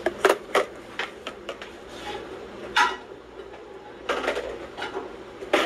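Irregular light clicks and knocks of kitchenware being handled: a plastic bowl and a metal spoon against a metal cooking pot. One clink about three seconds in rings briefly, and a quick cluster of knocks comes a little after four seconds.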